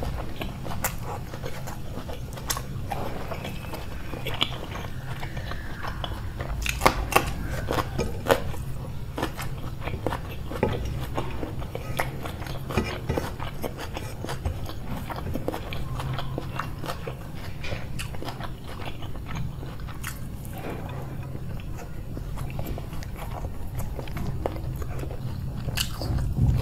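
A person eating close to the microphone: chewing and biting mouthfuls of food, with frequent sharp, irregular crunches, over a steady low hum.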